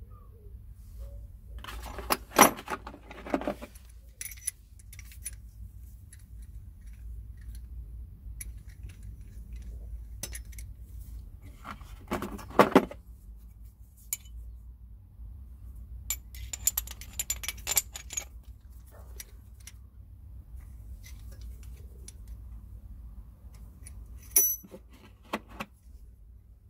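Steel parts of a brake caliper piston rewind tool kit clinking and rattling as they are handled: the threaded winder tool and adaptor plates knocking against each other and the case. The clinks come in several short clusters, the loudest about two and a half and twelve and a half seconds in.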